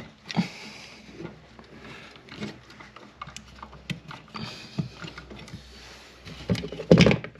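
Small clicks, scrapes and rustles of a duplex outlet and its wires being pushed by hand into a metal electrical box, with a louder burst of handling noise near the end.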